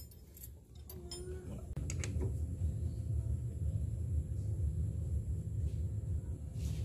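Steady low rumble with a few light metallic clicks about two seconds in, as a tool is worked on the motorcycle's flywheel nut while the flywheel is held with a bar.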